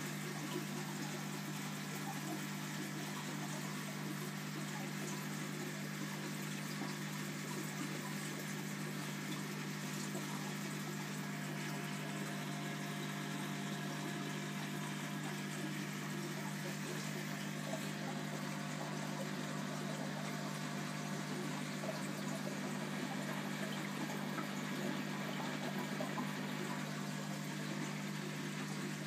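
Aquarium filter running: a steady wash of moving water over a constant low hum from the pump.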